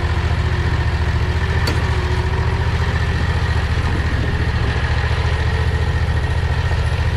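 Predator 670 V-twin engine running steadily at low speed, with an even low pulsing beat, as the go-kart crawls along a trail.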